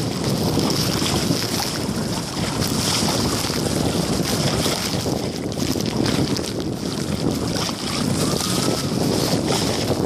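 Wind buffeting the phone's microphone over water sloshing and splashing around legs wading through shallow sea water, a steady rough rush that swells and dips.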